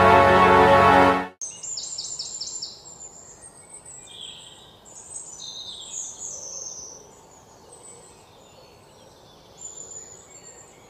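Background music that cuts off suddenly about a second in, followed by birds chirping and calling over quiet outdoor background, starting with a quick run of repeated high chirps.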